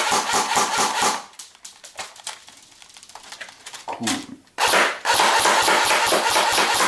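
Airsoft AK-105 firing BBs on semi-automatic in rapid strings of quick, evenly spaced shots. The shots stop about a second in and start again after about four seconds.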